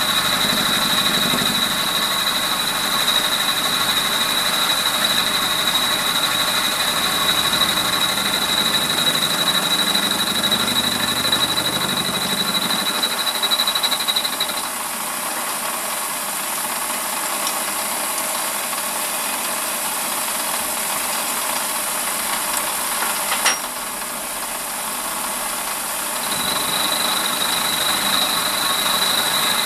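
WARCO mini lathe running steadily with a cutter in the chuck, milling a metal block held on the cross slide. A high steady whine stops about halfway through and returns near the end, and there is a single sharp click about two-thirds of the way in.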